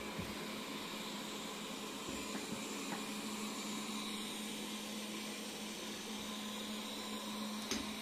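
Robot vacuum cleaner running across a shag rug: a steady motor hum under an even hiss from its fan and brushes. A single sharp click near the end.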